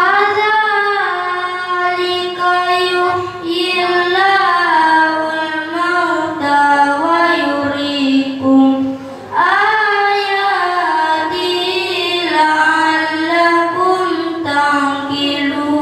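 A boy reciting the Quran in tartil style into a microphone: one high, melodic voice drawing out long notes that bend in pitch, with short pauses for breath about three and nine seconds in.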